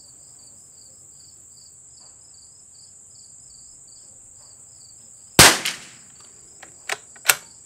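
A single .22 LR rifle shot from a stock CZ 452 bolt-action about five seconds in, followed by a few sharp metallic clicks as the bolt is worked. Insects chirp steadily throughout.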